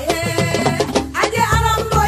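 Upbeat Latin-style dance music with a stepping bass line, steady percussion and a wavering melody line.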